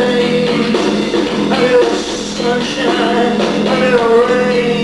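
Rock band playing live, loud and continuous.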